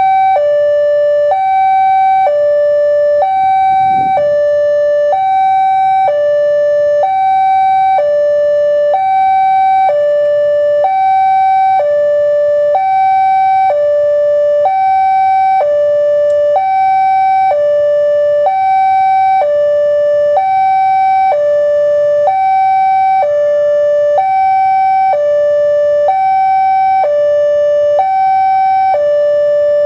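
Railway level-crossing alarm sounding: an electronic two-tone chime, a higher and a lower tone alternating steadily about once a second each, the warning that a train is approaching the crossing.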